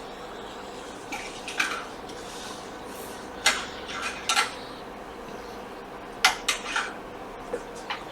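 Small metal tools clicking and clinking in short, sharp taps, about eight spread over several seconds, over a faint steady hum.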